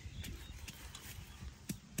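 Pestle pounding in a stone mortar: repeated dull knocks with small sharp clicks.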